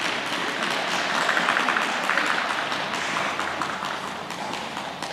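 Audience applauding, loudest in the first half and fading toward the end.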